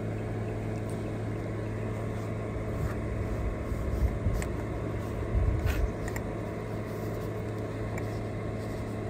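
Handling of a disassembled hydraulic cab jack pump as it is wiped with a paper towel: a few small clicks and dull knocks around four and five and a half seconds in, over a steady low hum.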